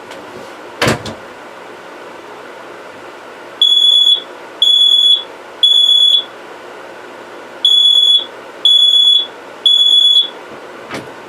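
Kidde i9010 10-year battery smoke alarm sounding two sets of three loud, high-pitched beeps, each about half a second long: the temporal-three pattern of a smoke alarm in alarm. A short thump comes about a second in, before the beeping starts.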